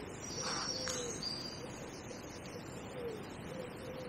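A pigeon cooing in a repeated low phrase, with a small songbird chirping a few high notes about half a second to a second and a half in.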